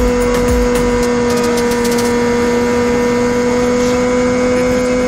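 Yamaha R6 inline-four sport-bike engine running at a steady high pitch, the note held constant without rising or falling.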